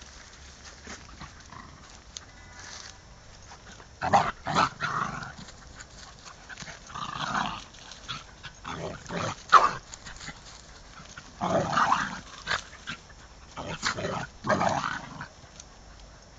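A dog barking in five short bouts with quiet gaps between them, the first about four seconds in.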